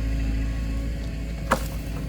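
A heavy engine running steadily with a low rumble, with a single sharp knock about one and a half seconds in.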